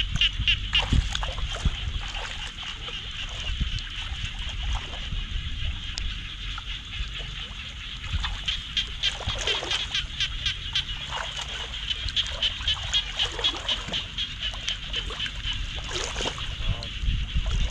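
Feet splashing as they wade through shallow floodwater, louder about a second in and near the end. Behind it runs a high, rapidly pulsing night chorus of calling animals.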